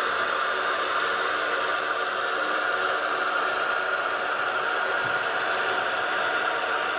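HO scale model passenger train rolling steadily past on model track: a continuous whir and rattle of wheels and mechanisms, mixed with the diesel engine hum from the Walthers E9 locomotives' Tsunami sound decoders.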